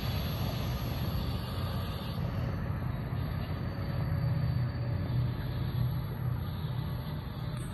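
Low, steady rumble of a departing MARC commuter train.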